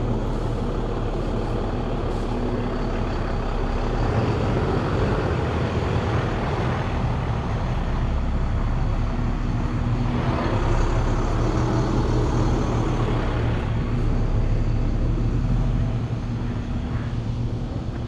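An engine running steadily at an even low pitch over a constant rushing noise, growing louder about four seconds in and easing off near the end.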